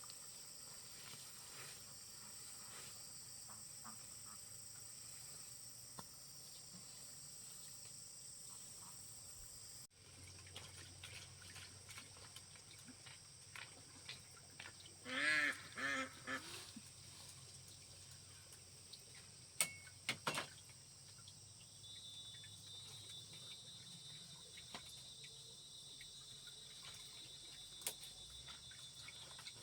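Ducks quacking, a short run of about three calls roughly halfway through, over a faint steady high-pitched hum. A couple of sharp knocks follow a few seconds later.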